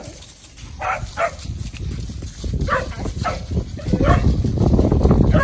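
Kelpie puppies barking at cattle: about six short, high barks, several of them in quick pairs. A low rumbling noise runs under them and grows louder in the last second and a half.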